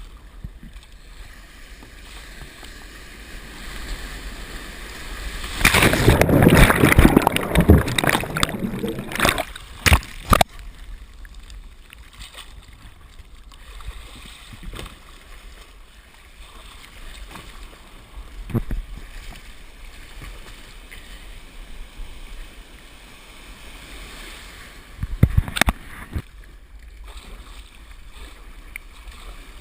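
Surf and water crashing and splashing over a head-mounted camera in its waterproof housing as a surf kayak wipes out, a loud rushing burst lasting about five seconds. Lower water sloshing follows, with a couple of sharp splashes and another short loud splash near the end.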